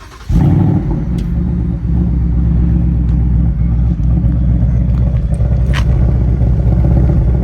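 A car engine with an aftermarket exhaust starts about a third of a second in, flares, then settles into a loud, steady, deep-rumbling idle.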